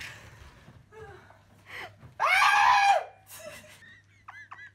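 A single loud, high-pitched scream of a person in horseplay, held for almost a second about two seconds in. A few short, high squeaks follow near the end.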